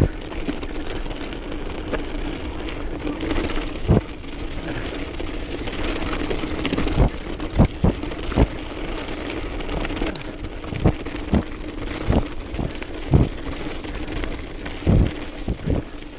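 Mountain bike rolling fast over a gravel forest track: a steady rumble of the tyres on gravel, broken by about a dozen sharp knocks and rattles at irregular moments as the bike jolts over bumps.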